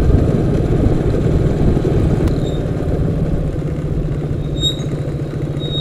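Motorcycle engine running steadily at low speed while riding, a fast, even low throb.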